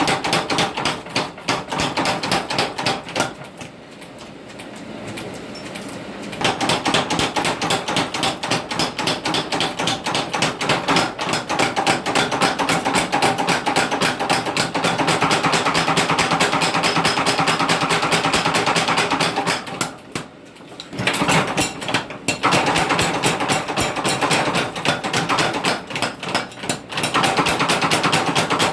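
Rapid, steady hammer blows on steel while a blade is forged, many strikes a second. The blows lull from about four to six seconds in and break off briefly about twenty seconds in.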